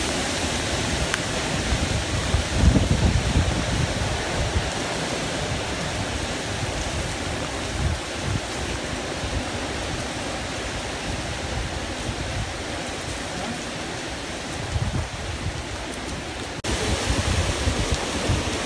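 Hurricane-force wind and heavy rain in a hurricane's eyewall: a steady rush of noise, with gusts buffeting the microphone, strongest about three seconds in. The sound changes abruptly near the end at a cut to another stretch of the same storm.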